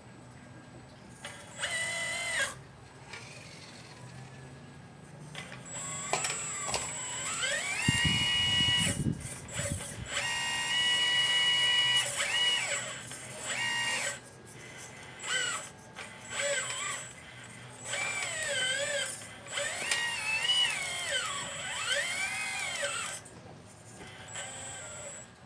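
Motors of a 1/12-scale radio-controlled Liebherr 954 excavator model whining in repeated spurts, the pitch rising, falling and holding as it works, with one longer steady run in the middle and a brief low rumble just before it.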